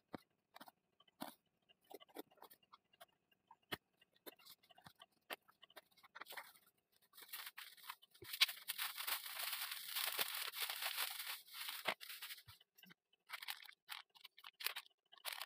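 A cardboard parcel box being opened by hand: scattered light clicks and knocks as it is handled, then several seconds of scraping and rustling as the packing is cut and pulled open.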